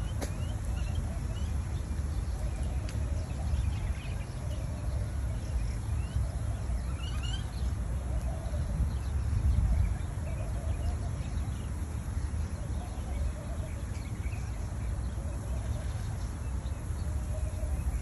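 Park ambience: wind rumbling on the microphone, with birds chirping faintly.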